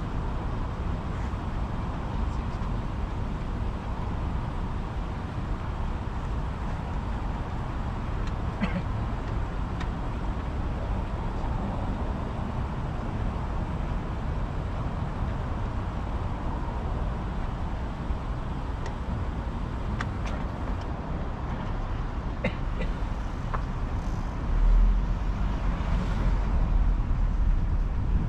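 Car engine idling and creeping at low speed: a steady low rumble with a few faint clicks. About 25 seconds in, the low rumble swells louder.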